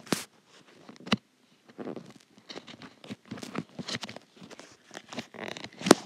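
Scattered soft taps, clicks and rustling: handling noise picked up by the iPad's microphone during a screen recording. Sharper clicks come just after the start, about a second in and near the end.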